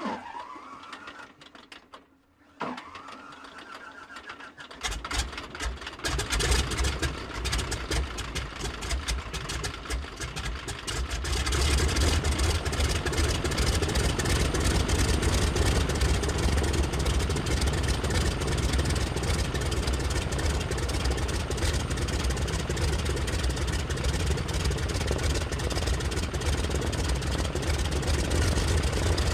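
Max Holste Broussard's Pratt & Whitney R-985 radial engine being started: the starter whines and winds up in pitch twice, the engine catches with uneven firing about five seconds in, and settles into a steady idle from about twelve seconds on.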